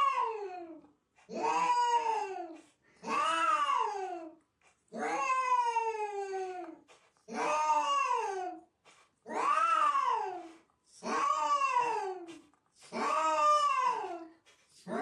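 A cat yowling over and over: about eight long, drawn-out calls, each rising and then falling in pitch, with short pauses between them.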